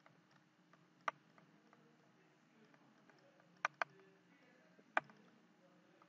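Sharp clicks from the computer input used to handwrite on screen, over faint room tone: one about a second in, two in quick succession past the middle, and one near the end.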